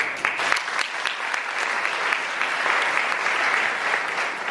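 Audience applauding, many hands clapping at once; the applause breaks out suddenly.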